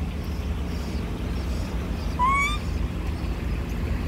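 A young macaque gives one short coo that rises slightly in pitch, about two seconds in, over a steady low rumble of road traffic.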